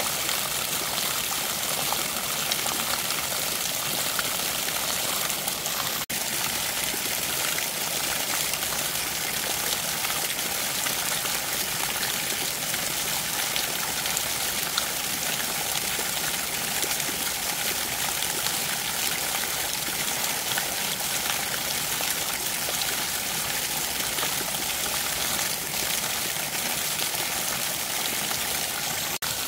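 Shallow mountain stream running over a rock bed: a steady rush of flowing water.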